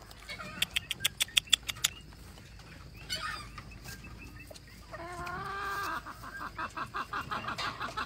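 Chickens clucking: a fast run of sharp clicking notes in the first two seconds and a short high call near the middle. A drawn-out call comes about five seconds in, followed by a quick string of clucks at about five a second.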